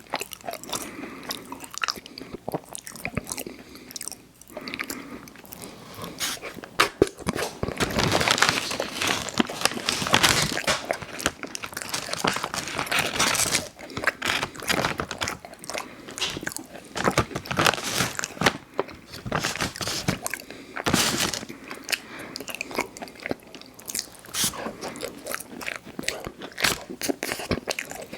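Close-miked biting and chewing of soft cocoa cookies with cream filling: irregular wet crunches and mouth sounds, with louder clusters of bites.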